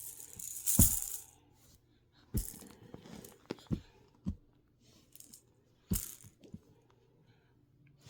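Toy baby shaker shaken by hand in irregular bursts: a loud rattling burst about a second in, then scattered short shakes and knocks.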